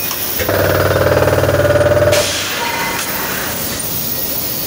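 A foundry machine running with a loud, rough, pitched buzz for about two seconds, then cutting off suddenly, over the steady din of the shop floor.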